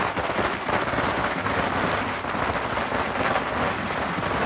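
Dense, continuous crackling of many firecrackers and fireworks going off at once, a steady loud rattle with no break.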